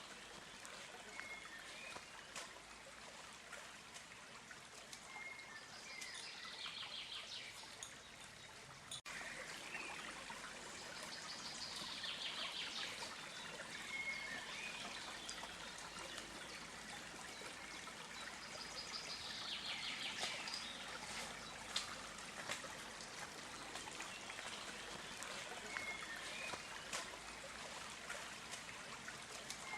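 Water trickling and running in a small stream, with a bird singing the same short phrase, a brief note and then a falling, buzzy trill, about every six to seven seconds.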